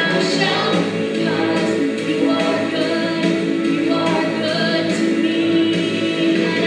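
A hymn sung by a group of voices, with long held notes.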